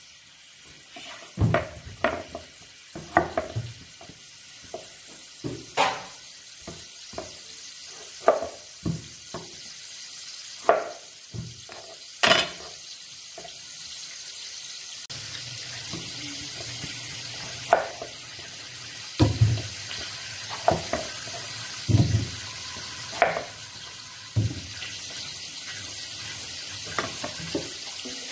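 Tap water running into a stainless steel kitchen sink, getting louder about halfway through, with frequent sharp knocks and clunks as eggplants, a steel pot and a cleaver are handled in the sink.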